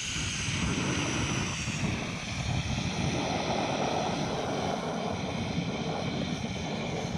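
Gas burner of a Jobsworth X3 canister cooking system running with a steady rushing roar while it heats about a litre of water in its pot, not yet boiling.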